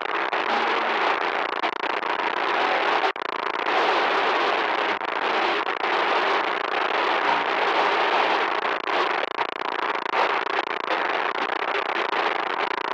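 Loud, harsh static noise: a dense crackling hiss that flickers rapidly, with a brief dropout about three seconds in.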